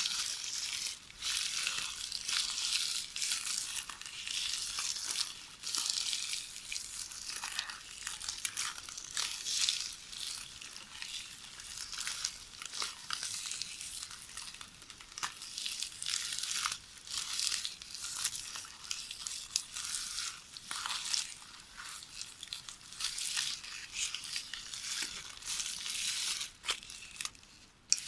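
VHS videotape rustling and crackling as it is knitted by hand: an irregular, continuous run of crinkles, with a brief lull near the end.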